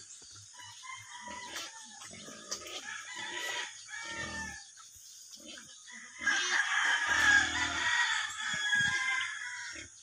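A rooster crowing: one long call beginning about six seconds in and lasting about three and a half seconds, with fainter short chicken clucks before it.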